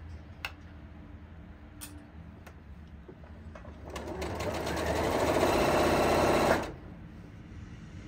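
Janome sewing machine stitching: a few light clicks, then the machine runs for about three seconds, speeding up as it goes, and stops abruptly.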